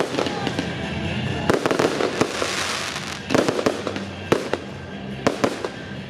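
Aerial fireworks bursting, with sharp bangs every second or so and a dense crackling shower about two and a half seconds in, over music playing.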